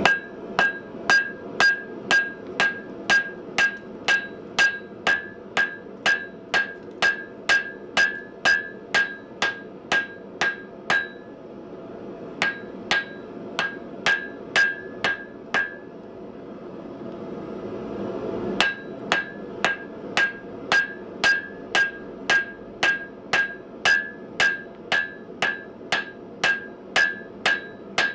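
Hand hammer blows on hot steel over an anvil, each strike ringing, in a steady rhythm of about two and a half a second, forge-welding the folded pieces of an anvil body. About eleven seconds in, the hammering slows to a few blows and stops, while a steady rushing noise swells. The rhythmic blows pick up again about two-thirds of the way through.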